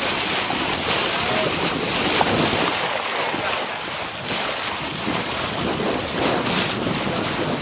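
Wind buffeting the microphone and water rushing past the hull of a sailboat under way, a steady, fluctuating noise.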